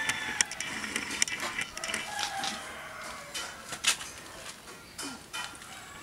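Chickens calling, with scattered sharp clicks and knocks throughout and a louder knock about four seconds in.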